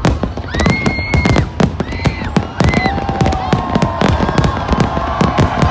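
Fireworks display going off: a dense run of bangs and crackling bursts, several a second, with held high whistling tones a few times.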